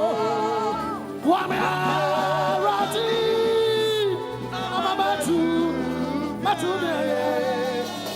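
Gospel music: a voice sings long, wavering held notes over a musical accompaniment.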